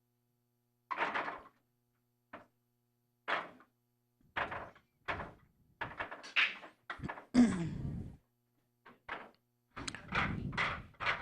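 Pool balls being racked: a series of separate clacks and thuds as balls are gathered and set into the rack on the table, with a longer rolling sound about seven seconds in.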